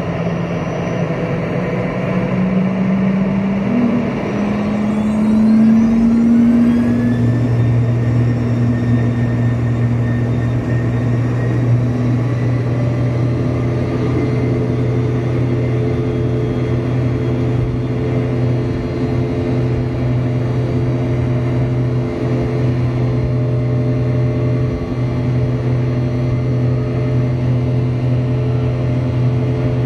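Rear-mounted Rolls-Royce BR715 turbofan of a Boeing 717-200, heard from the cabin seat beside it, spooling up to takeoff thrust. Its whine rises in pitch over the first several seconds, then settles into a loud steady drone. Over the drone sits a stack of steady tones, the buzzsaw noise of fan blade tips turning faster than sound at takeoff power.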